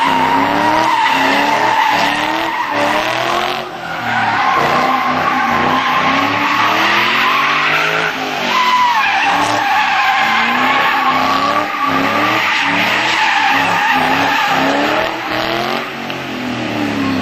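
Ford Mustang doing drift donuts: the engine revs up and down over and over beneath a steady high squeal from the spinning rear tyres. There is a short dip in level about four seconds in.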